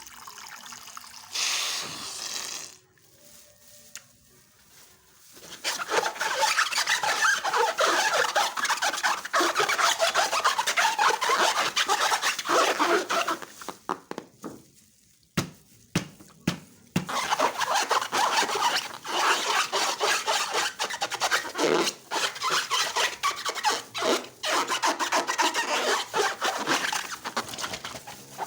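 Slime being mixed and squished, giving a dense sticky crackling and rubbing in two long stretches, with a short pause and a few sharp clicks between them.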